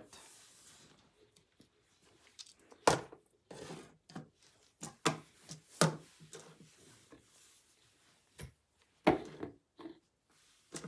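LEGO plastic parts and rubber-tyred wheels being handled and set down on a wooden tabletop: a few sharp knocks a second or more apart, with softer clatter and rubbing between.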